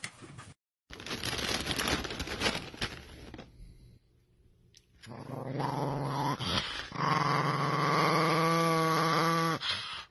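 Small dog growling with bared teeth. A low growl starts about halfway through and swells, about two seconds later, into a long loud held growl that wavers in pitch near the end. Before it, a couple of seconds of unclear noisy sound.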